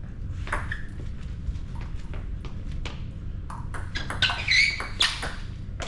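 Table tennis rally: a celluloid ball clicks sharply off bats and the table, several strikes a second, uneven in loudness. A brief high squeak comes about four seconds in.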